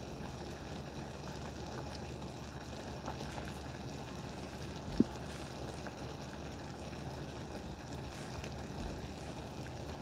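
Water at a rolling boil in a stainless steel saucepan with a blue crab cooking in it: a steady bubbling hiss. A single short knock about halfway through.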